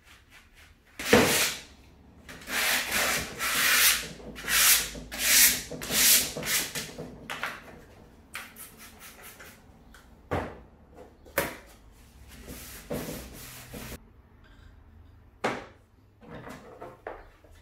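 Hand sanding on a wooden drawer: a run of about six scraping back-and-forth strokes, with fainter strokes after them. There is a sharp knock about a second in and a few more knocks later.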